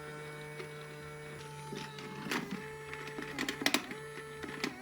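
Small battery-powered motor of a Daiso toy robot vacuum running with a steady whirring hum that sags in pitch now and then. The cleaner is running but not moving, as if stuck. Several clicks and knocks come in the second half.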